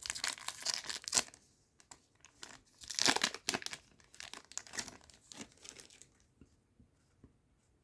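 A trading card booster pack wrapper being torn open and crinkled, with crackling bursts at the start and again about three seconds in, trailing off into faint scattered rustles near the end.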